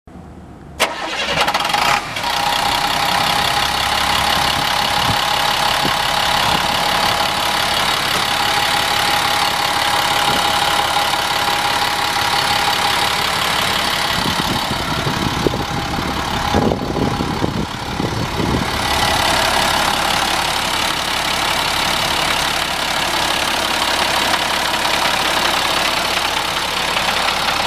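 A 1998 International gravel truck's engine starting about a second in, then running at a steady idle, with a rougher stretch of low rumble around the middle.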